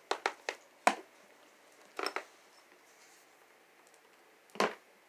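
Sharp plastic clicks and knocks as a kitten bats a small ball around a round plastic balance board on a wooden floor: four quick knocks in the first second, a short rattle about two seconds in, and one more knock near the end.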